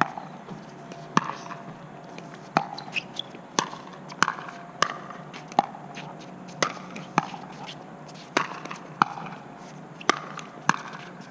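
Pickleball doubles rally: paddles strike a hollow plastic ball back and forth, with sharp pops roughly every half second to second and the ball bouncing on the hard court in between.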